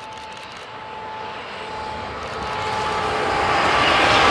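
Renfe class 269 electric locomotive hauling a passenger train and approaching, its steady whine growing steadily louder, with wheel and rail noise building near the end as it passes.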